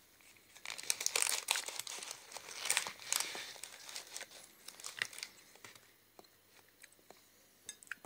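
Knife cutting a slice from a chocolate-glazed Bird's milk cake and lifting it out, with irregular crinkly, crunching bursts for about the first five seconds, then a few faint clicks.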